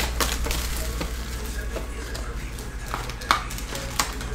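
A cardboard trading-card box being handled and opened: rustling and crackling, with sharp snaps about three and four seconds in, the first of them the loudest.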